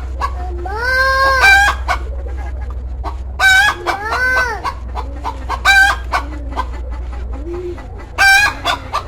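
Chickens calling: repeated short squawking clucks, with two longer calls that rise and fall in pitch about a second and about four seconds in.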